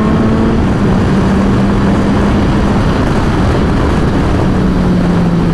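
Suzuki Hayabusa's inline-four engine pulling steadily at highway speed, its note holding nearly level with small shifts in pitch, under heavy wind rush on the rider's microphone.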